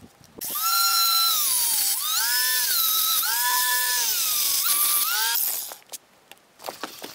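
Corded angle grinder with a cutoff disc cutting through steel rebar. The motor whine starts about half a second in, drops in pitch each time the disc bites into the steel and climbs again as it frees up, then winds down and stops a little after five seconds.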